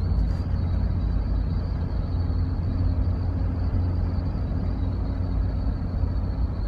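Road noise inside a moving car: a steady low rumble, with a thin steady high whine above it.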